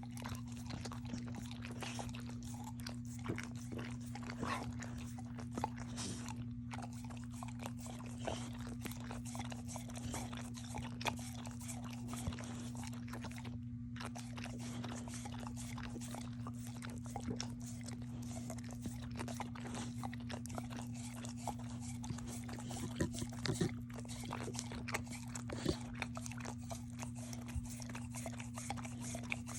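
A dog chewing and crunching a hard snack, with irregular crunches all through, over a steady low hum.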